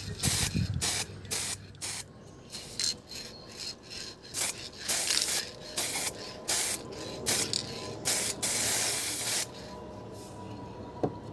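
Aerosol spray paint can spraying in many short bursts, with one longer burst of about a second near the end.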